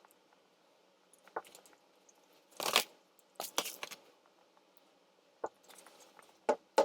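A person eating chicken nuggets: short, irregular crunches and clicks of chewing and handling, the loudest a little under three seconds in.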